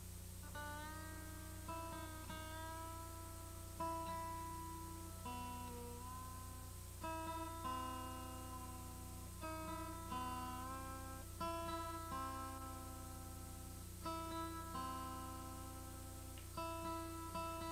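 Steel-string acoustic guitar being tuned: single strings and pairs plucked in turn about once a second, a few notes sliding slightly in pitch as the pegs are turned.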